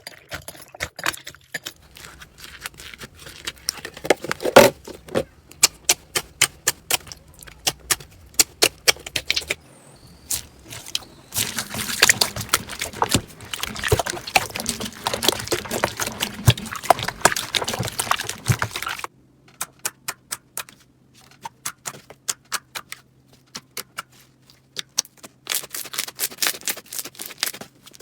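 Slime being squeezed and pressed by hand, giving rapid crackling clicks and pops, densest through the middle stretch and sparser towards the end.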